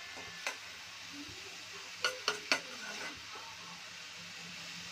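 Finely chopped onions sizzling in oil in an aluminium kadai while being stirred, the metal spoon clinking against the pan once about half a second in and three times in quick succession about two seconds in.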